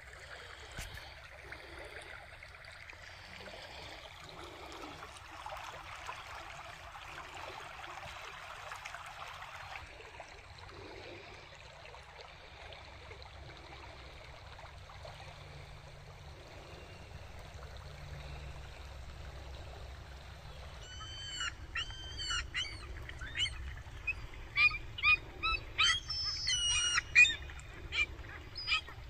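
A small creek running, a faint even rush through the first ten seconds or so. From about twenty seconds in, gulls calling: a quick series of short, sharp cries that come thicker and louder toward the end.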